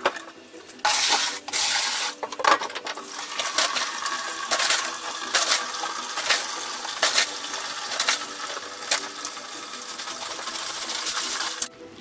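Hot water pouring steadily into a plastic bucket to mix calf milk powder, with sharp clinks about once a second; the pouring stops suddenly near the end.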